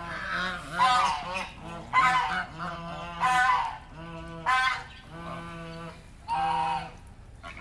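Domestic geese honking over and over: about five loud honks, with lower, steadier honking calls between them.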